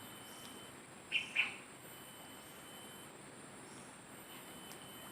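Riverside insects (crickets) trilling steadily and faintly at a high pitch, with a bird giving two quick chirps about a second in.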